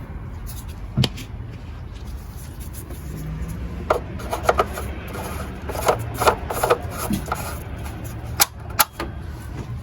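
Hands working at an engine's oil filler neck: a sharp knock about a second in, then a run of short plastic clicks and taps with some rubbing as the oil filler cap is screwed back on and the area is handled.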